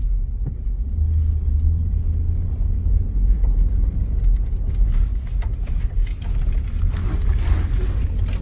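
Car driving, heard from inside the cabin: a steady low rumble of engine and tyres, with louder hissing road noise about seven seconds in.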